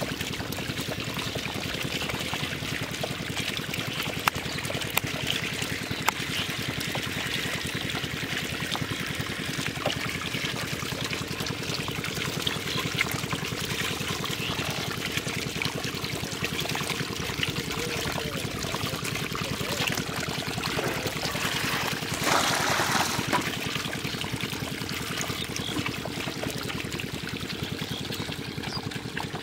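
Water running steadily and trickling through a channel cut in a mud bank into a plastic crate fish trap. There are a few small ticks, and a brief louder rush comes about two-thirds of the way in.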